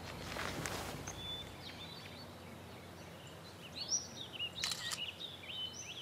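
Small birds chirping in short high notes over a soft outdoor hiss, with a brief rustling swish at the start and a sharp click late on.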